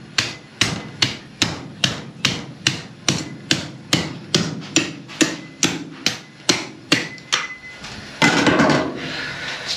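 Steel cleaver chopping through an alligator gar's hard armored scales, a steady run of sharp strikes about two or three a second. The strikes stop near the end, followed by a louder rough scraping noise lasting about a second.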